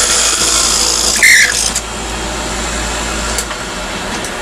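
Wood lathe running while a turned wooden piece is parted off, the cutting making a loud hiss. About a second in comes a short, loud screech, after which the cutting stops and only the lathe's motor hum goes on.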